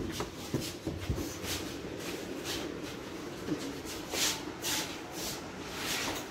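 Shuffling footsteps and the rustle of clothes and a school bag as people walk: soft scuffs every half second or so.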